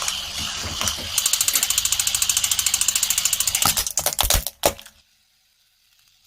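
Rapid mechanical clicking, about a dozen clicks a second for a couple of seconds, followed by a few loud knocks, after which it stops.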